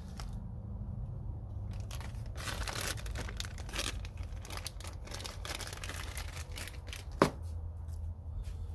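Packaging being handled: irregular crinkling and tearing, busiest in the middle, with one sharp knock about seven seconds in.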